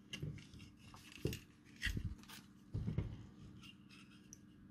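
Handling noise from a small circuit board being turned over and repositioned in the plastic jaws of a helping-hands clamp: several soft knocks and rubs over a faint steady hum.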